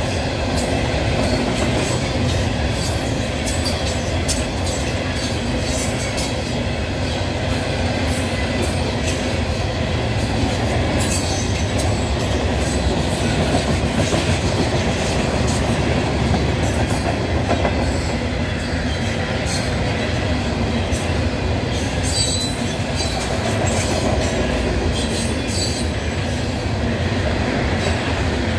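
Loaded coal train's hopper cars rolling past close by: a steady rumble of steel wheels on rail, with clicks and clacks as the trucks cross rail joints. A brief high wheel squeal comes about two-thirds of the way through.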